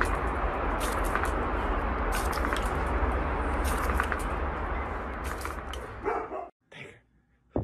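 A dog barking and snapping at the jet of a garden hose spray nozzle, over the steady rush of the spraying water. The sound cuts off about six and a half seconds in.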